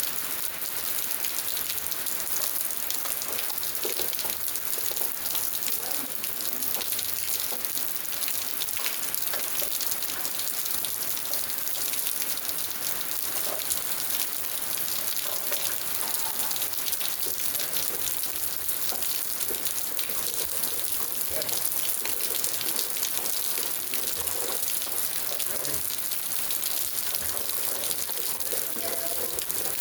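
Steady rain falling, a dense even hiss of drops.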